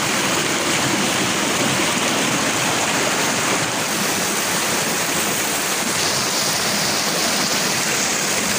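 Fast river water rushing and churning over rocks through a narrow boulder channel, a steady loud rush.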